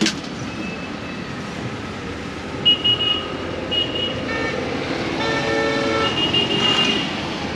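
Vehicle horns honking: two short toots about 3 seconds in, then a longer multi-tone honk from about 4.5 to 7 seconds, over steady road traffic noise.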